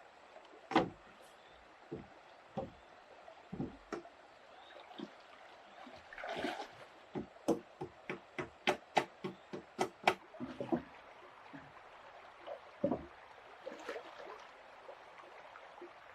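Irregular knocks and taps of wood on wood, coming faster in the middle, about two or three a second, over the faint sound of a running stream.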